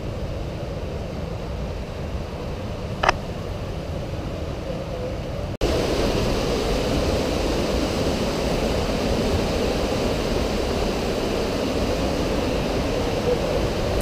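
Steady rushing of the Breitach mountain river through the gorge, with a single sharp click about three seconds in. The sound drops out for an instant a little before halfway and comes back louder.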